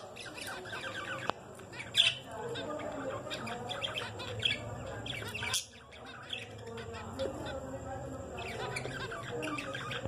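Caged zebra finches calling: many short chirps overlapping almost without pause, with one louder call about two seconds in.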